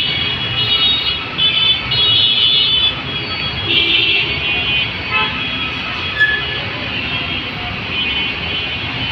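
Dense road traffic with truck and bus engines running and vehicle horns honking again and again, several short and longer blasts in the first four seconds, then fainter horns.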